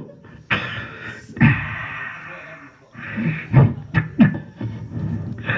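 Beatboxer's vocal percussion: deep kick-drum-like thumps with stretches of hissing, rasping noise between them, in an uneven pattern rather than a steady beat.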